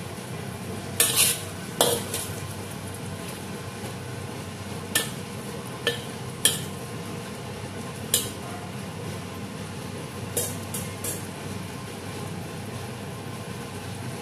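Chicken wings simmering in sauce in a wok: a steady bubbling hiss, broken by sharp clacks of a cooking utensil striking and scraping the wok as the wings are stirred and turned. The clacks come in a cluster about a second in and then singly every second or two through the middle.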